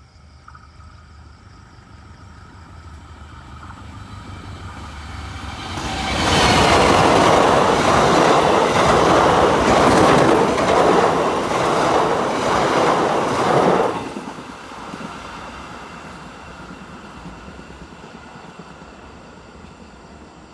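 A train approaching, passing close by for about eight seconds with its wheels clattering over the rail joints, then going away. The sound builds steadily, is loudest in the middle, drops off sharply about fourteen seconds in, and fades to a low rumble.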